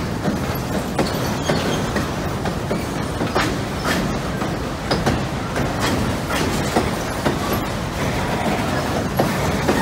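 Empty auto rack freight cars rolling past on a steel truss trestle: a steady rumble of wheels on rail, broken by frequent irregular clacks as the wheels cross rail joints.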